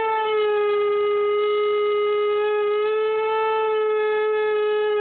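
Husky howling: one long, loud howl held at an almost steady pitch.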